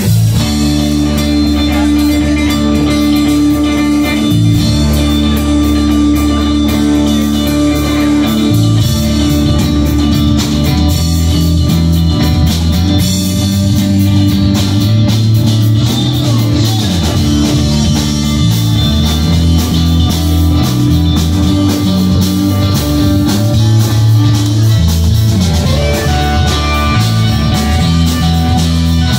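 Live blues-rock band playing loudly: electric guitars over drums and a moving bass line.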